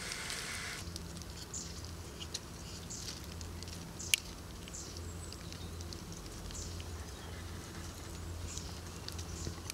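Quiet outdoor ambience: a steady low hum with scattered small clicks and rustles, faint short high chirps, and one sharp click about four seconds in.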